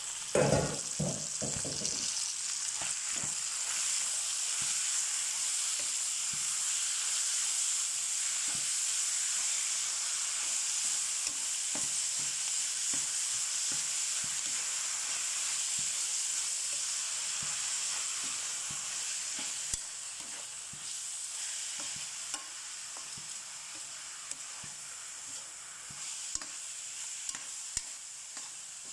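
Ground beef and pork frying in a stainless steel wok: a steady sizzle, with a metal ladle scraping and knocking against the pan as the meat is stirred. A few heavy knocks come in the first two seconds, lighter ones after, and the sizzle eases a little after about twenty seconds.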